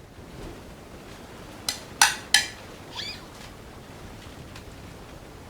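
Bicycle bell rung three times in quick succession, about a third of a second apart, near two seconds in.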